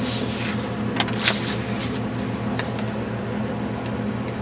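Paper leaflets rustling and crinkling as they are handled, with two sharp crinkles about a second in and a few lighter ones later, over a steady low hum.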